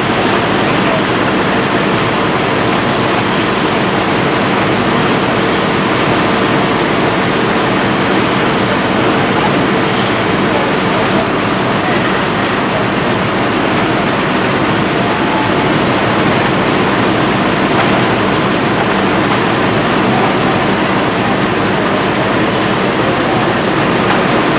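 Fire hose nozzle flowing water onto a burning wooden building: a loud, steady rushing hiss of the stream, with a low steady hum underneath.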